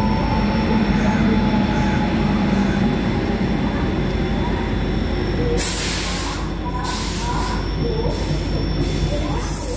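Electric locomotive and passenger coaches rolling past along the platform: a steady rumble of steel wheels on rail, with the locomotive's low hum strongest at first. From about halfway through come short sharp rattles and hisses as the coaches go by.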